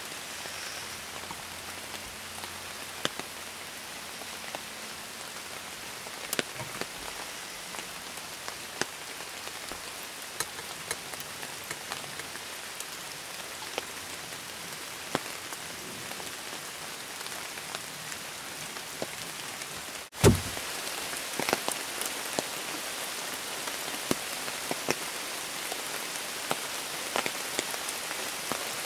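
Steady rain falling, an even hiss with many sharp taps of single drops. About two-thirds through, the sound drops out for a moment and a loud low thump follows, then the rain goes on.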